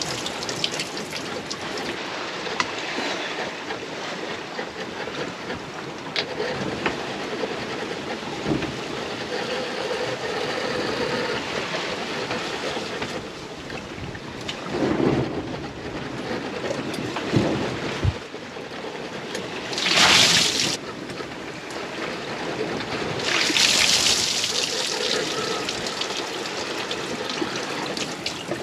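Sea washing past the hull of a sailboat under way, with wind. Two short, loud rushes of water come about twenty and twenty-three seconds in.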